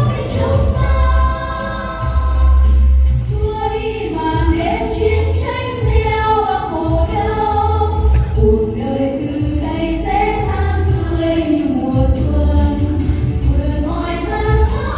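Music: a Vietnamese patriotic song, with a group of voices singing the melody over a band and a heavy bass beat.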